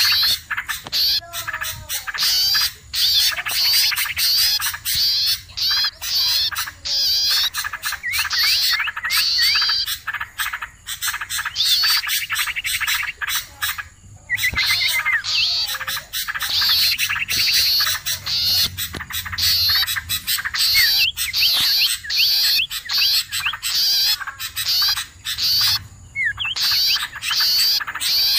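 Many small songbirds chirping, trilling and chattering over one another in a dense, noisy chorus with fast rasping notes. This is a 'pikat' bird-lure recording, a busy small-bird call mix played to draw wild birds in.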